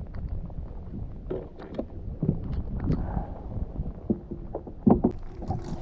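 Knocks and thumps from handling on a kayak, over a steady low rumble of wind on the microphone, with the loudest thump a little before the five-second mark.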